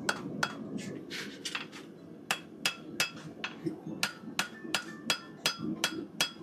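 Farrier's hammer striking a steel horseshoe held in tongs on the anvil: a steady run of sharp, ringing metal-on-metal blows, about three a second, growing louder about two seconds in.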